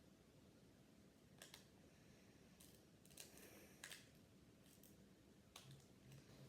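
Near silence with a few faint, short clicks and light scrapes, about five in all, from trading cards being handled.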